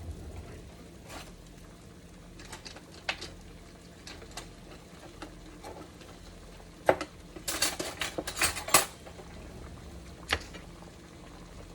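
Kitchen clatter: scattered clinks and knocks of dishes and utensils, with a quick run of louder clattering a little past the middle, over a faint steady hum.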